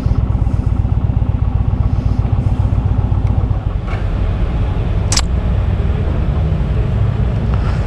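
Motorcycle engine running at low speed with a steady low exhaust pulse as the bike rolls slowly, with one brief high-pitched noise about five seconds in.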